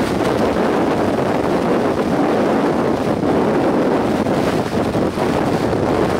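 Strong storm wind blowing across the microphone: a loud, steady rush of wind noise.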